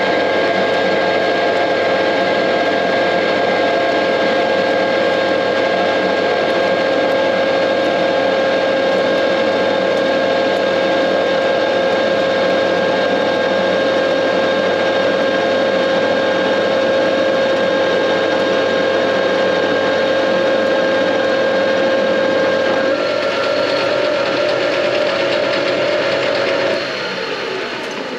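JFMT metal lathe running, its gearhead giving a steady whine as the chuck turns a long shaft between centres. Near the end the whine changes, then the spindle slows and winds down to a stop.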